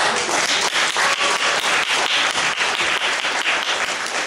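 Theatre audience applauding, the clapping starting suddenly and going on steadily.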